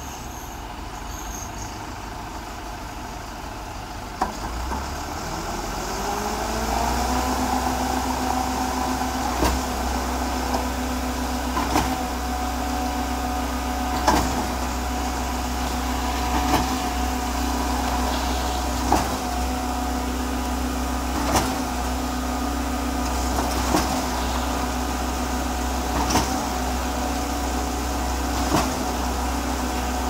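Concrete mixer pump machine running. Its running note rises over a few seconds early on and then holds steady, with a sharp knock about every two and a half seconds, the pump's pistons changing stroke as it pumps concrete.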